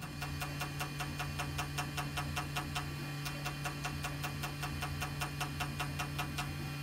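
Bulunmaz Ringmaker CNC jewellery milling machine cutting a crosshatch pattern into a gold-coloured band: a steady motor hum with a rapid, even ticking from the cutting.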